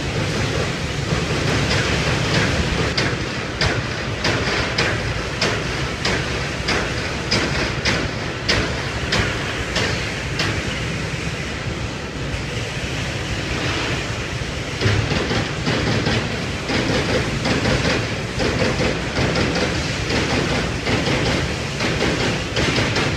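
Global 30 CNC turret punch press running: a rapid, uneven clatter of punch strokes over a steady low machine hum. The strokes thin out around the middle, and the low machine noise grows heavier again in the last part.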